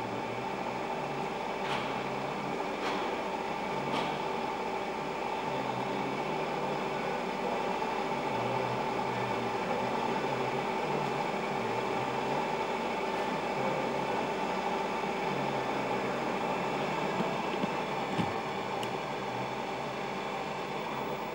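Steady hum of workshop machinery, with a few faint clicks in the first few seconds.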